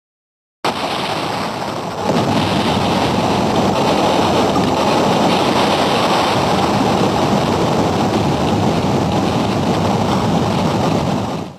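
Transformation sound effect: a steady rushing noise with no clear pitch. It starts abruptly about half a second in, grows louder about two seconds in, and cuts off suddenly at the end.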